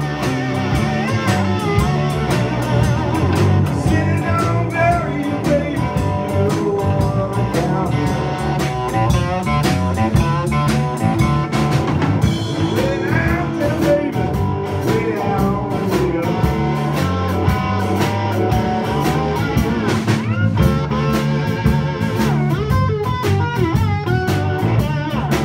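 Live electric blues band playing: electric guitar over a drum kit and a moving low line.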